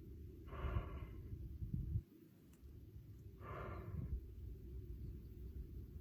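A lion breathing heavily: two noisy breaths about three seconds apart, over a low rumble that drops away about two seconds in.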